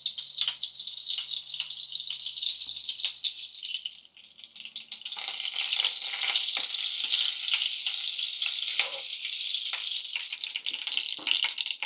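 Hot oil and butter sizzling and crackling in a frying pan. The sizzle dips briefly about four seconds in, then comes back louder, with more pops.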